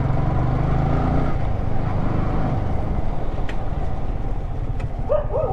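Yamaha R15 V3's single-cylinder engine running while the motorcycle is ridden, its note dropping a little about a second in.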